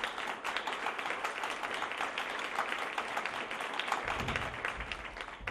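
Applause: many hands clapping at once, at an even level.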